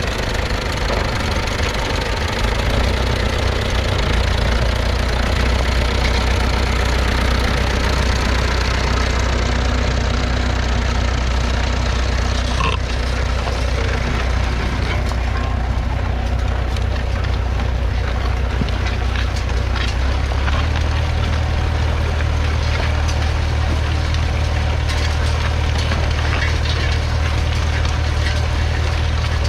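1962 McCormick International B275's 2.3-litre four-cylinder diesel engine running steadily, its note stepping up slightly about twenty seconds in.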